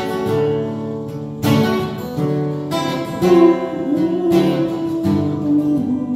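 Acoustic guitar strummed, with chords struck and left ringing in a steady rhythm, a new chord about every second.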